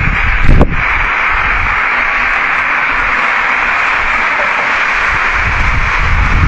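A short knock about half a second in, then a loud, steady hiss concentrated in the middle range, with no pitch or rhythm, which eases off near the end.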